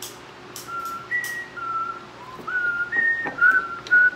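A woman whistling a tune through puckered lips: a string of clear, separate held notes that changes pitch from note to note, starting about a second in.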